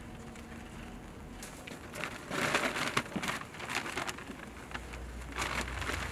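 A brown paper bag crinkling and crumpling as it is grabbed and handled, in two bursts: a longer one about two seconds in and a shorter one near the end.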